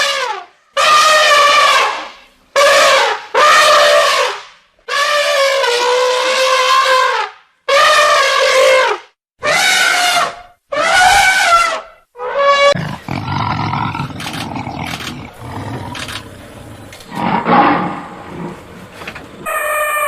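An animal calling again and again: about nine loud drawn-out calls, each holding a steady or slightly falling pitch, in the first twelve seconds. They give way to a lower, rougher sound with scattered knocks, and one more call comes at the very end.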